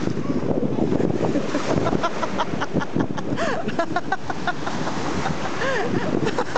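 Ocean surf washing and breaking in the shallows around a wading person's legs, with wind rumbling on the microphone. A few short pitched voice-like calls are mixed in.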